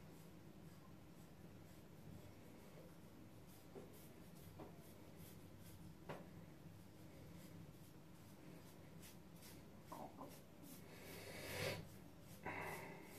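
Faint scratchy rasp of an Edwin Jagger double-edged safety razor with a Wilkinson Sword blade scraping over a lathered scalp, with a few light clicks and a louder stroke near the end.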